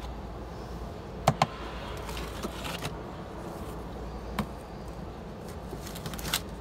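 Plastic vermicompost tower trays being handled and lifted off the stack: a few sharp clacks and short bursts of scraping, over a steady low background hum.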